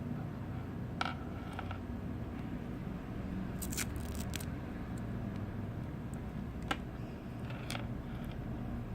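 Handling noise from unboxing small earphones and their packaging: a few light clicks and short scrapes, with a quick cluster of scrapes about four seconds in, over a steady low hum.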